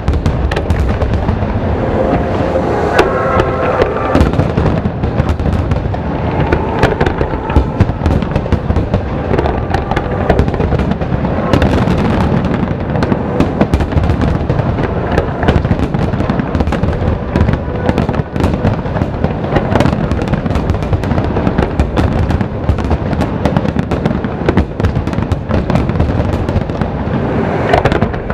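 Fireworks display: a dense, continuous barrage of rapid, overlapping bangs from shells bursting, with music playing underneath.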